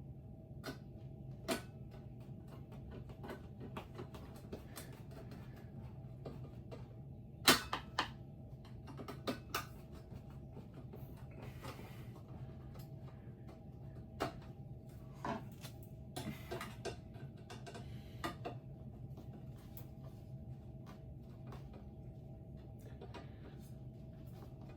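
Scattered clicks and knocks of ceiling fan parts being handled and fitted during installation, the loudest pair about seven and a half seconds in, over a steady low hum.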